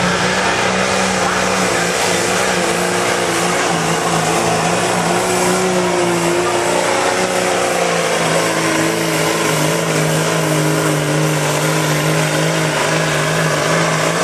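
Dodge Ram's 5.9 Cummins turbo-diesel running flat out under full load while pulling a truck-pull sled, a loud steady drone whose pitch sags slightly in the second half as the sled bogs the engine down.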